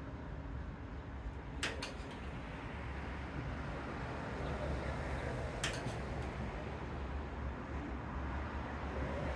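A metal spoon clinks lightly twice as chili is spooned onto an omelet on a plate, over a steady low background rumble.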